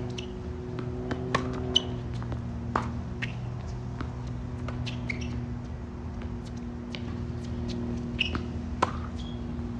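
Tennis rally on a hard court: sharp pops of racket strings striking the ball and the ball bouncing, irregularly about every second or two, with short high squeaks of tennis shoes on the court surface. A steady low hum runs underneath.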